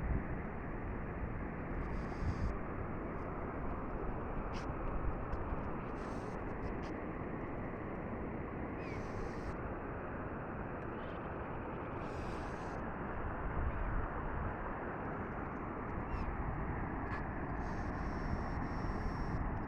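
Steady rushing noise of a waterfall, with a few faint clicks scattered through it.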